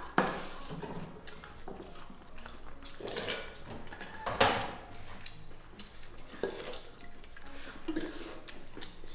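Tableware clinking and knocking: bowls, plates and utensils set down and handled. Two loud knocks stand out, one just after the start and one about halfway through, with lighter clinks between.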